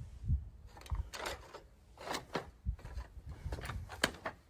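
Irregular scuffs, knocks and scrapes, a dozen or so short strokes with a few dull low thumps among them.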